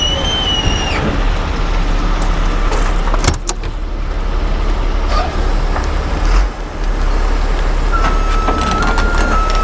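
Rotator wrecker's diesel engine running steadily. A high whine fades out about a second in, a few clicks come around three seconds, and a thin tone stepping up and down in pitch starts near the end.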